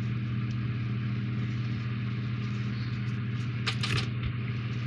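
A steady low hum, with a few light clicks about four seconds in.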